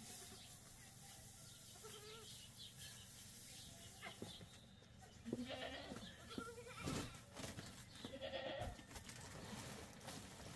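Goats bleating in a few short calls, with some sharp knocks in between.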